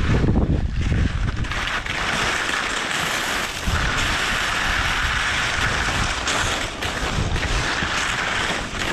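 Wind buffeting the microphone of a helmet-mounted GoPro, joined about a second and a half in by a steady hiss of skis sliding over snow.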